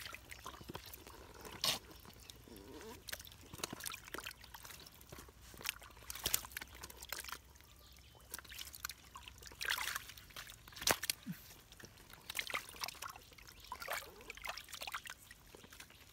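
A hand sloshing and groping through shallow muddy water in a mud hole, with irregular small splashes and trickles, and a few sharp ticks, the loudest about eleven seconds in.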